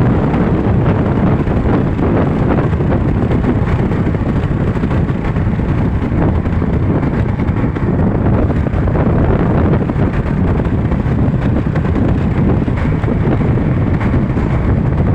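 Steady, loud wind buffeting the microphone over the rumble of a moving vehicle on the road.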